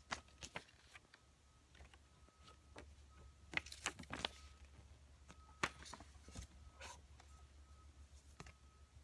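Faint, scattered rustles and clicks of paper inserts, a plastic-wrapped pack and cards being handled, with a louder cluster of crinkles about three and a half to four seconds in.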